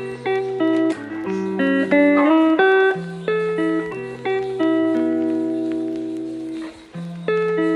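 Background music: a mellow lo-fi track of plucked guitar chords over a bass line.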